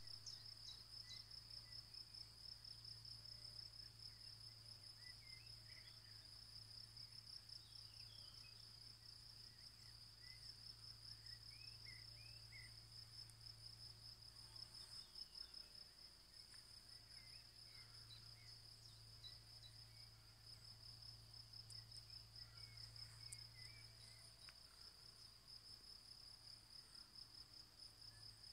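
Faint, steady high-pitched trilling of crickets, with scattered short bird chirps and a faint low hum underneath.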